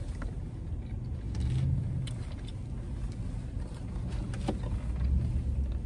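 Low, steady vehicle rumble heard inside a car's cabin, swelling a couple of times, with a few light clicks.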